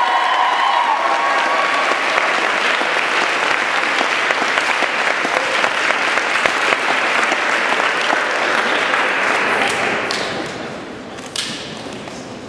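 Audience clapping steadily, dying away about ten seconds in.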